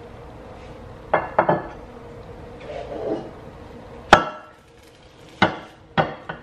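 Clunks and knocks of a ceramic slow-cooker insert being handled with oven mitts and tipped so a whole cooked butternut squash slides out into a ceramic baking dish. There are a handful of separate knocks, the sharpest about four seconds in.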